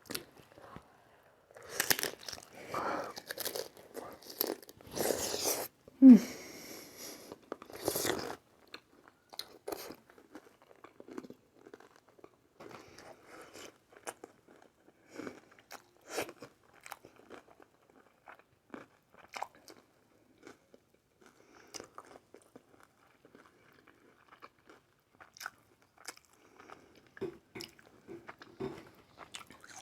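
Close-miked eating of aguachile verde: crunchy bites and wet chewing, heaviest in the first eight seconds, then quieter smacking and chewing clicks. A short falling vocal sound about six seconds in is the loudest moment.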